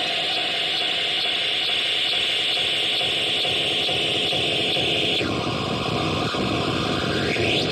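Electronic sound machine giving out a dense, steady noise with a bright hiss. The hiss cuts off about five seconds in, and near the end a tone sweeps upward in pitch.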